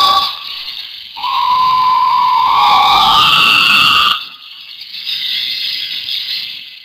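Cartoon monster sound effect: a high, drawn-out cry that rises slightly in pitch, starting about a second in and breaking off after about three seconds, followed by a quieter, thinner rasping noise.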